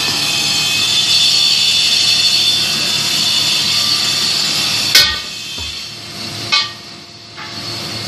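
A pipe-bending machine running with a steady high whine. It cuts off with a sharp clunk about five seconds in, and a second short clack follows about a second and a half later while the machine is stopped.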